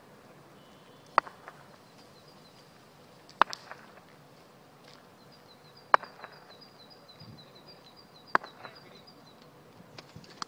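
A wooden cricket bat tapped on asphalt, four sharp knocks about two and a half seconds apart, while a bird chirps in quick runs of high repeated notes.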